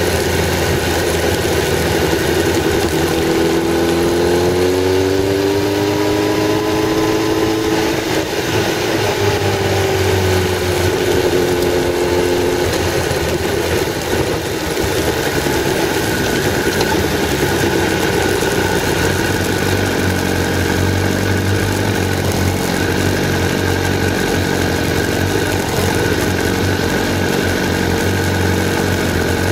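Onboard engine and road noise from a vehicle driving along. The engine note rises for a few seconds, holds, then falls and settles as the vehicle slows, over a steady rush of road and wind noise.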